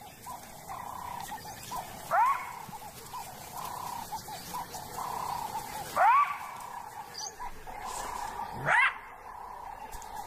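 Side-striped jackal giving alarm barks: three short, loud barks, each sweeping sharply up in pitch, a few seconds apart.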